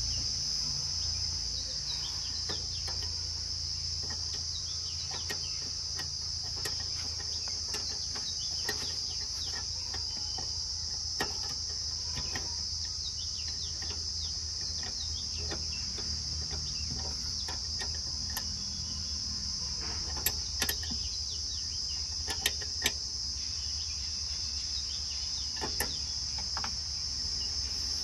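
Steady high chirring of crickets over a low steady hum, with scattered sharp clicks and taps, a few louder ones about twenty seconds in.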